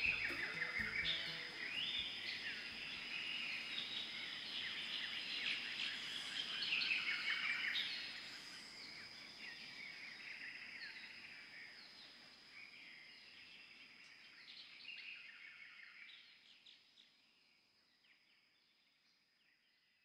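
A dense chorus of high chirping calls over a steady high-pitched drone, strongest at first and fading out gradually over the second half.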